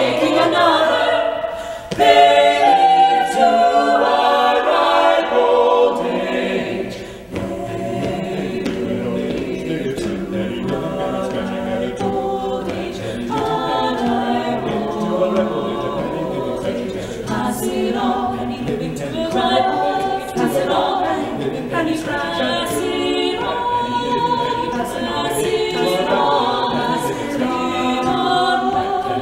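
Mixed-voice a cappella ensemble singing a choral piece in Appalachian folk style, men's and women's voices in harmony. It swells louder about two seconds in, then eases back to a softer level after about seven seconds.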